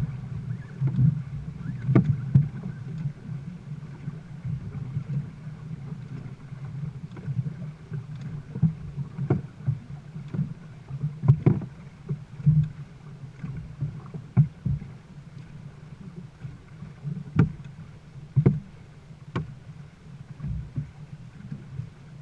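Dragon boat paddles dipping and splashing, with irregular sharp knocks every second or two, over a steady low rushing noise.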